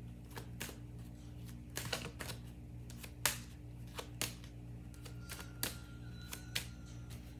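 Deck of tarot cards being shuffled by hand: irregular sharp card snaps and clicks, about one or two a second.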